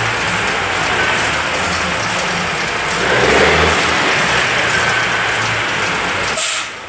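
Diesel engine of a semi-truck tractor running as it creeps forward, rising in a rev about three seconds in as black smoke puffs from its vertical stacks. A short loud hiss comes near the end.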